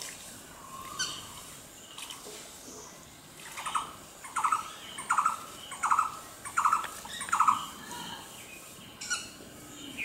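A bird calling: six loud notes in an even run, about three-quarters of a second apart, starting a little over three seconds in, with a few faint single chirps before and after.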